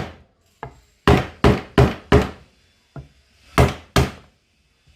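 Blows struck on a piece of wooden board laid over a new ball bearing, knocking it into the bearing seat of an LG front-load washer tub. The knocks come in quick runs, four in about a second, then a pause and two more near the end.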